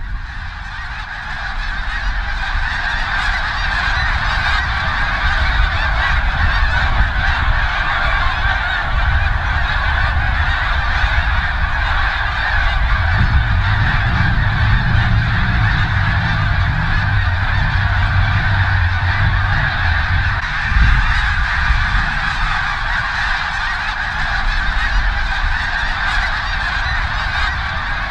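A huge flock of snow geese calling all at once, a dense, steady wall of honking. A low rumble sits under the calls through the middle stretch.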